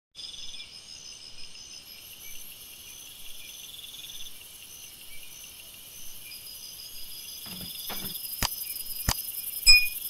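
Insects chirping steadily in high repeated trills. Near the end come a few sharp footstep clicks of flip-flops on a gravel path, then a short bright chime.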